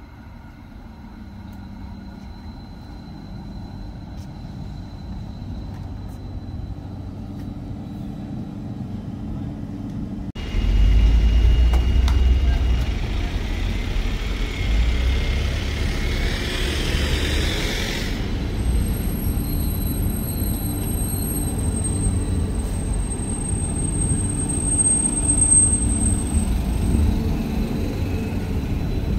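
Stadler Variobahn tram approaching along the track, its running sound growing steadily louder. It then gives way abruptly to a louder steady rumble of a tram standing at a street stop amid town traffic, with a thin high whine holding for several seconds in the second half.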